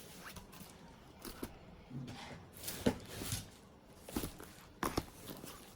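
Boxed CD albums being handled and set down: scattered light knocks and clicks with faint rustling, the sharpest taps about three and five seconds in.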